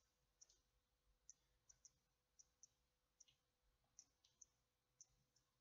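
Near silence: room tone with a faint steady hum and about a dozen faint, irregularly spaced small clicks.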